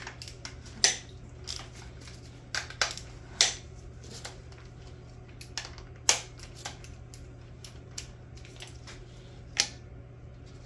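Irregular sharp metallic clicks and knocks of hand tools being handled and set against engine parts, the loudest about one, three and a half and six seconds in, over a steady low hum.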